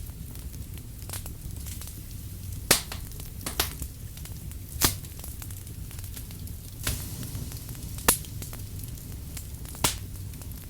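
Firewood burning, crackling with sharp pops every second or two over a low steady rumble.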